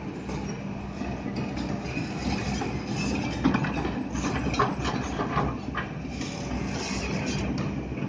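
Kobelco SK200 hydraulic excavator running with a steady diesel hum while it dumps a bucket of dirt and rocks into a steel dump-truck bed. A burst of rocks clattering and banging on the metal bed comes in the middle, the loudest part.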